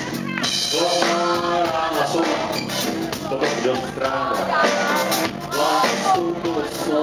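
Live rock band playing, with a male lead singer singing over drums and amplified instruments.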